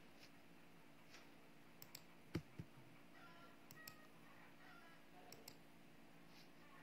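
Faint clicks of a computer mouse and keyboard, scattered and sparse, with a sharper pair of clicks about two and a half seconds in, over a faint steady hum.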